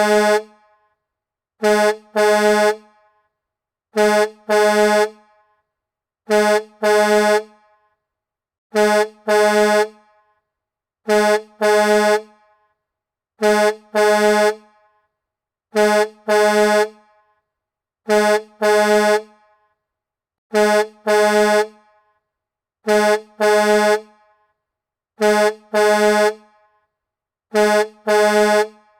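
Semi truck horn honking in pairs of blasts, a short one followed at once by a longer one. The pairs repeat evenly about every two and a half seconds, with silence between them.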